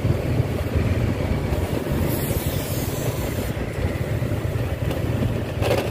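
Motorbike riding along a city street, heard from a handheld phone: steady engine and road rumble with wind buffeting the microphone, and a brighter hiss for about a second and a half near the middle.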